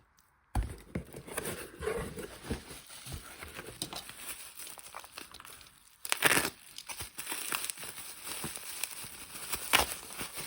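Packaging crinkling and rustling as items are handled and unwrapped by hand: irregular crackles, with a louder burst of crinkling about six seconds in.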